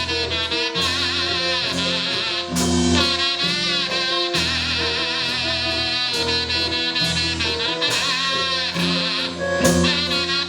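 Live band playing an instrumental blues passage: a lead melody wavering in pitch over steady bass notes and drums.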